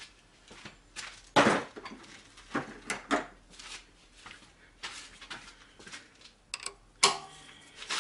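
Scattered metallic clanks and knocks of hand tools being handled and fitted onto a tight engine-mount nut, with the loudest knock about one and a half seconds in.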